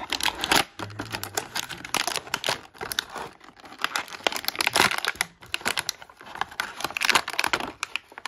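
Thin clear plastic bag crinkling and rustling in the hands as an action figure is worked out of it: a run of dense, irregular crinkles with a couple of brief lulls.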